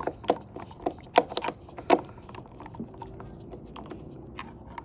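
Irregular sharp clicks from a hand screwdriver turning a mounting screw through the floodlight's plastic base into the metal junction box, most of them in the first two seconds and fewer after.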